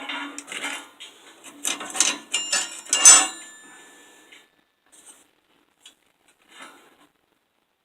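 Steel flat-bar hinge pieces clanking as they are handled and set down on a metal surface, a run of knocks with the loudest near three seconds in, ringing briefly; a few faint clicks follow.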